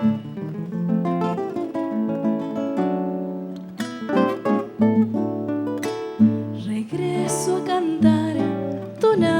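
Acoustic guitar playing the plucked introduction of a Cuyo tonada, a run of single notes and chords.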